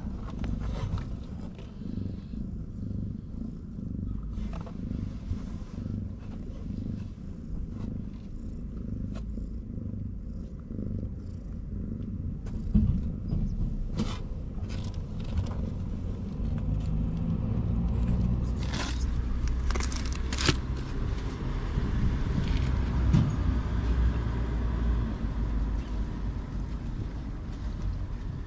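Domestic mother cat purring steadily, up close, while she nurses her kittens. A few sharp clicks come about halfway through and again later.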